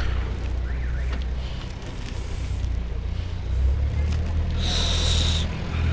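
Wind buffeting an external microphone mounted on a cyclist's helmet, a steady low rumble with street traffic noise behind it. Near the end comes a brief high-pitched squeal lasting under a second.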